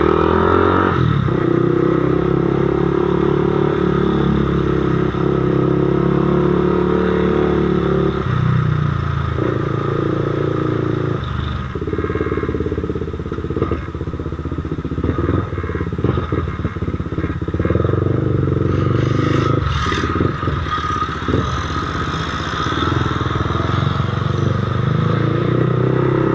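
CFMOTO 300SR's single-cylinder engine running through an aftermarket full-system exhaust while riding slowly in first gear, its note rising and falling several times with the throttle.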